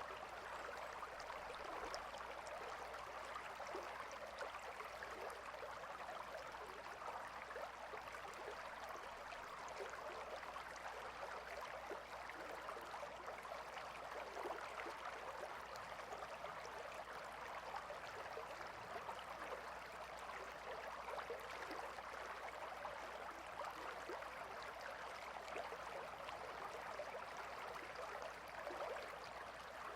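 A gentle river flowing, a steady, even babble of running water.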